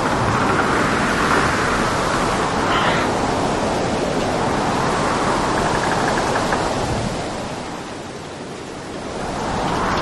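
Storm at sea heard from aboard a boat: a steady rush of wind and breaking waves, easing briefly near the end before building again.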